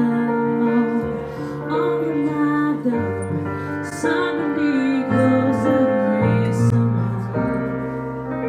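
Live music: a digital stage keyboard plays a slow, gentle piano accompaniment, its bass notes changing every second or two, while a woman sings.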